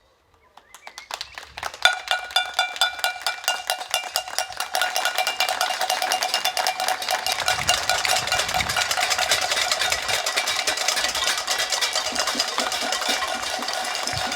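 Many people clapping and a metal object being struck rapidly with a clanging ring, like a bell or a pot, starting faint and swelling within the first two seconds into a dense, continuous din.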